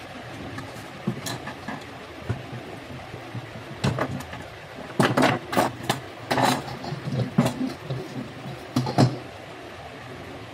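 Handling noise on a wooden workbench: a soldering iron and tools being picked up and set down, giving a run of knocks and clatters that come thickest and loudest about five to nine seconds in, over a steady background hum.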